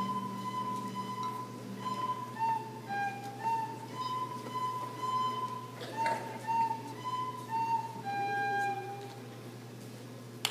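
Solo recorder playing a simple melody of single clear notes, each about half a second long, ending about nine seconds in.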